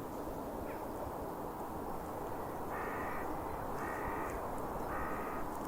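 A crow cawing three times, about a second apart, each caw about half a second long, over a steady background hiss.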